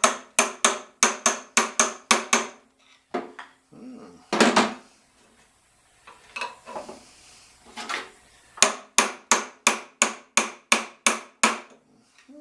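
Hammer striking a 1969 VW Beetle generator's pulley, driving it off the shaft: two runs of quick, ringing metal blows about three a second, the first at the start and the second near the end, with a few single knocks between.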